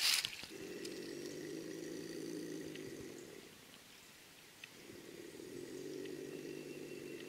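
Trapped Virginia opossum growling low: two long growls of about three seconds each, with a short pause between. A brief crackle of movement comes right at the start.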